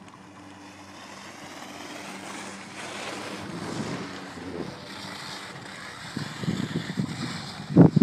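Wind rushing across a phone's microphone on a moving chairlift, gusting harder in the second half, with a steady low hum in the first half and one loud knock just before the end.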